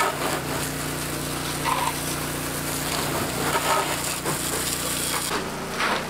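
Pressure washer running, its jet of water hissing against the body, tyres and suspension of a muddy side-by-side UTV, over a steady motor hum. The spray sound drops about five seconds in.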